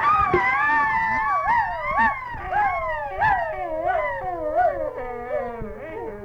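A long, wavering howl-like wail that slides slowly down in pitch and fades near the end.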